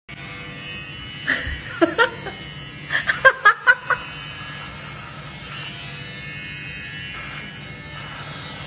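A small handheld electric device, held to a cat's head, buzzing steadily like an electric shaver. About one to four seconds in, a few short pitched sounds come over the buzz.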